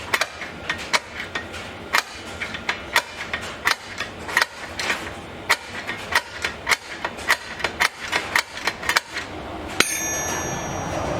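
The knurled star-wheel adjuster of a rear drum-in-hat parking brake being turned, giving a run of sharp metallic clicks, a few a second, as the shoe is dialed out toward drag inside the brake disc. Near the end comes one sharp click and then a steady rushing noise.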